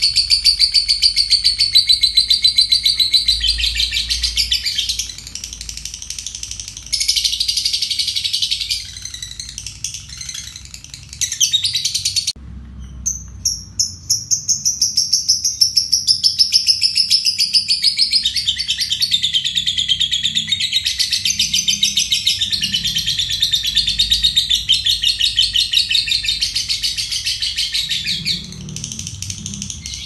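Lovebird singing its long "ngekek": a rapid, shrill chattering trill delivered in long unbroken runs. It breaks off briefly a few times, most sharply about twelve seconds in, then runs on for some fifteen seconds.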